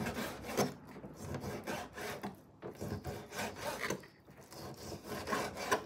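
Kitchen knife slicing raw chicken into pieces on a plastic cutting board, the blade sawing and scraping against the board in repeated, irregular strokes.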